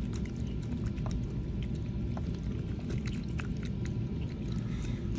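Small wet squelches and clicks as a plastic probe and fingers work through a dissected squid's mantle and ink on a wet tray, over a steady low hum.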